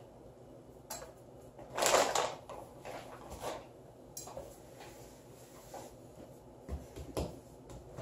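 Kitchen handling sounds: a few scattered knocks and clatters of utensils and dishes on a counter, the loudest about two seconds in.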